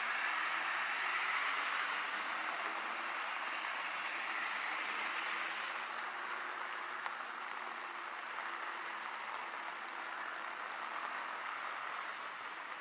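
Steady hiss of rain falling, a little louder over the first few seconds, with a faint low hum under it.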